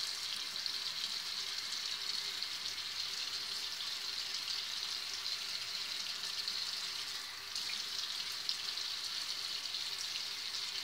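Water running steadily from a tap, a constant hiss, briefly quieter about seven and a half seconds in.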